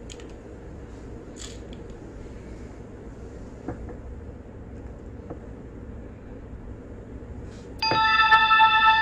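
Steady low background noise with a couple of faint clicks, then near the end a bright chime sound effect starts suddenly: several clear, evenly spaced tones ringing together and slowly fading.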